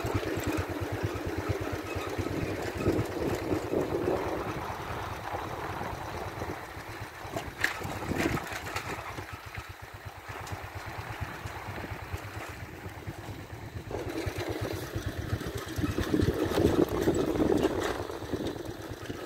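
A vehicle's engine running with a steady, fast low pulsing rumble. It eases off around the middle and grows louder again near the end.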